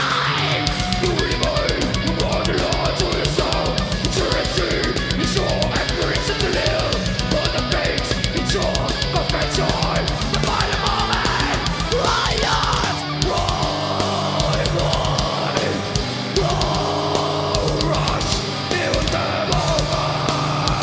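Groove metal band playing live: distorted electric guitars over a drum kit with rapid bass drum beats.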